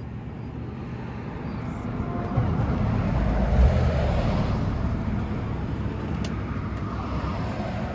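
A car driving past on the street, its noise swelling to a peak about halfway through and then fading away.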